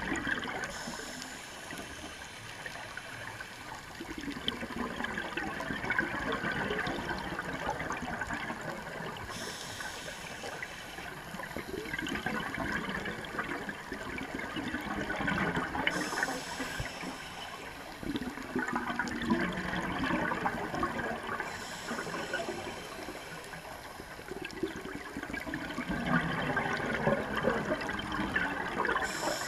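Scuba regulator breathing underwater: exhaled air bubbles gurgle in four long swells, about one every seven seconds, with quieter stretches between.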